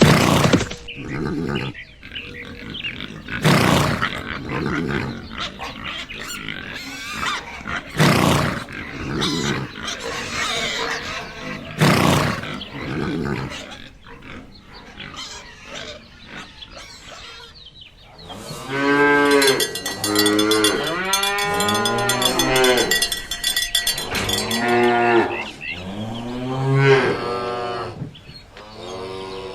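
Farm animals calling. First come several loud, rough calls a few seconds apart. From a little past halfway there is a run of drawn-out pitched calls that rise and fall, like mooing.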